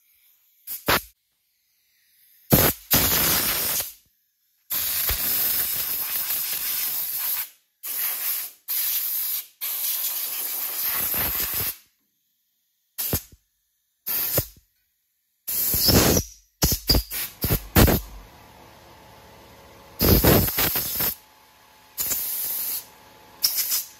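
Compressed-air blow gun blasting dirt off a race car's tube chassis in a series of hissing bursts, some short blips, the longest lasting a few seconds.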